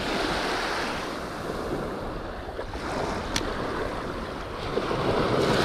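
Small ocean surf washing up and drawing back on a sandy beach, with wind on the microphone. The surf swells louder near the end, and there is a single brief click about three seconds in.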